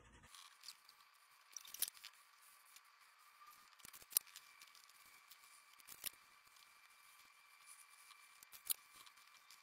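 Quiet colouring of a paper butterfly at a table: a few sharp clicks and taps over a faint steady hiss.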